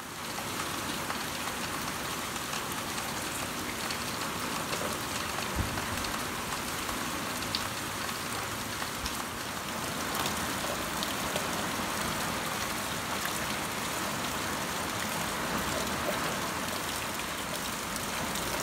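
Steady rain from a subtropical storm falling on trees and a lawn, with a few faint ticks of single drops.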